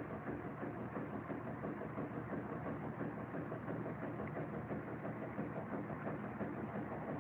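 Steady, unchanging mechanical hum of a running motor.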